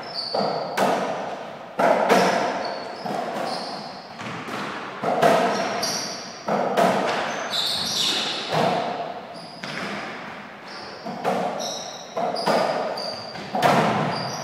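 Softraquet rally in an echoing court: the ball knocked back and forth by racquets and bouncing off the wall and floor, with sharp echoing knocks about once or twice a second. Short high squeaks of shoes on the court floor come in between.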